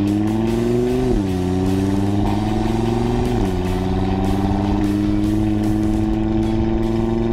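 Audi TT RS's turbocharged 2.5-litre five-cylinder engine accelerating hard, its pitch climbing through the revs. It drops sharply with a quick dual-clutch upshift about a second in and again a little past three seconds, then climbs steadily higher in the next gear.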